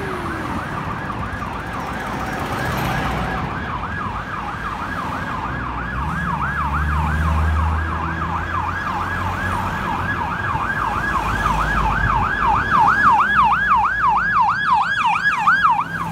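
Electronic emergency-vehicle siren on a fast yelp, sweeping up and down about three times a second and growing louder near the end as a second, higher siren joins in. The low rumble of passing vehicles runs underneath.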